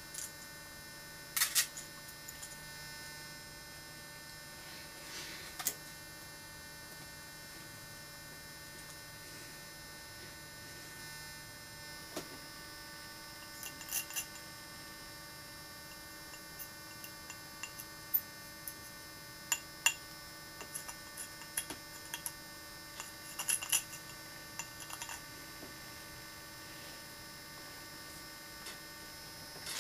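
Steady electrical hum with scattered faint sharp ticks and scratches, most of them in the middle stretch: a hand-held tungsten carbide point engraver working on a drinking glass.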